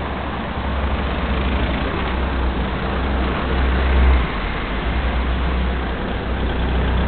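Street traffic: cars driving along a city road, heard as a steady noisy hum with a strong low rumble.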